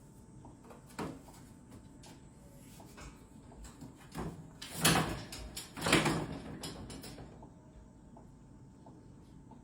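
A few knocks and clatters, the loudest two about a second apart near the middle, over a faint steady hum.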